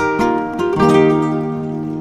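Background music: a solo acoustic guitar plucking notes that ring on.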